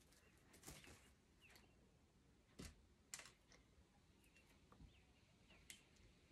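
Near silence: room tone with a few faint, scattered clicks and light taps.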